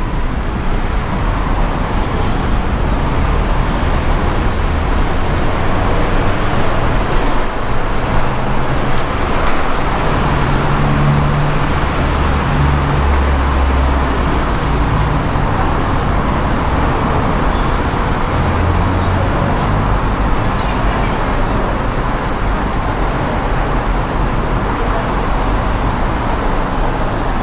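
Steady road traffic noise, with heavier low engine rumble swelling about halfway through and again about two-thirds of the way in as vehicles pass.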